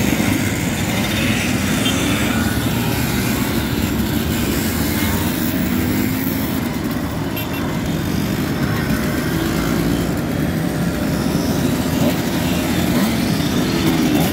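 A stream of two-stroke mopeds and small motorcycles, Simsons among them, riding past one after another. Several engines overlap at once, their pitch rising and falling as riders pull away and go by.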